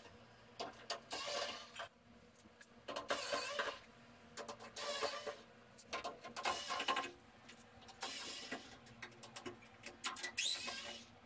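Cordless drill/driver backing screws out of a dryer's sheet-metal back panel: about seven short whirring bursts, one after another, some rising in pitch as the motor spins up.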